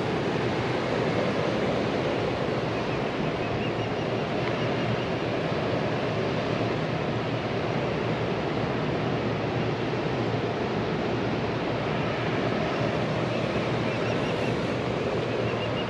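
Steady rush of water flowing out below a large dam.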